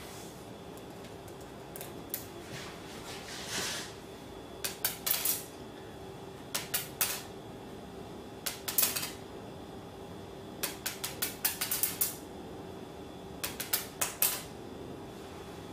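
Buckyball neodymium magnet spheres dropped onto a polished granite countertop, clattering in quick bursts of sharp clicks as they bounce and snap together into short chains. There are about six bursts, a second or two apart, over a faint steady hum.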